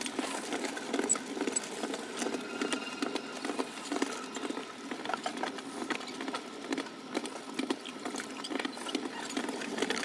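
Foot-kicked potter's wheel turning in its pit, giving soft knocks at about one to two a second as the potter's feet drive it round.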